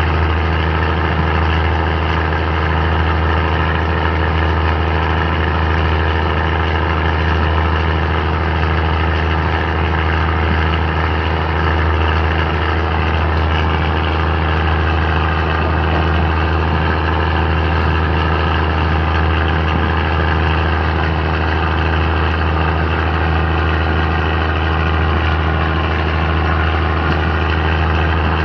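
Diesel train's engine running with a steady low drone, unchanging throughout.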